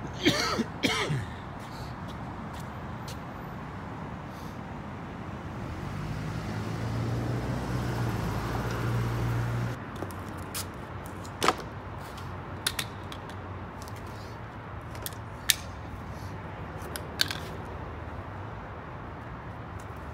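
Street background with a brief loud noise at the start, then a vehicle's engine hum building for a few seconds and stopping abruptly about halfway through. After that come scattered sharp clicks and rustles as a large cloth print on a cardboard backing is carried and laid on the pavement.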